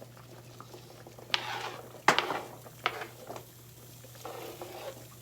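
Chopped carrots dropped into a pot of boiling soup: a few splashes and plops, with a sharp knock against the pot about two seconds in.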